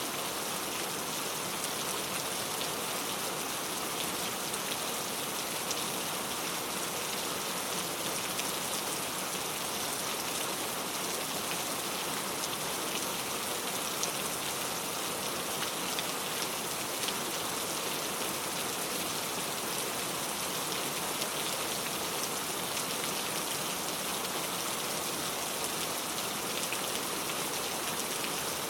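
Steady rain falling on a surface, a constant hiss with many fine drop ticks, unchanging throughout.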